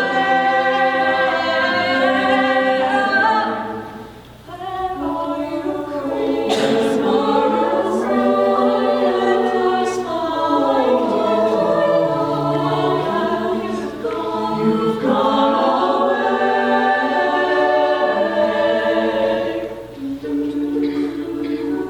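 A high school madrigal choir singing a cappella in close harmony, with a short break in the sound about four seconds in.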